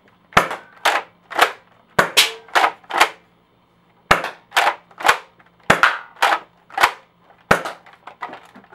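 Modded Nerf Elite Alpha Trooper pump-action blaster, fitted with a metal trigger catch, being primed and fired over and over in a test firing. It makes a quick run of sharp clacks and pops, about two a second, with a short pause about three seconds in.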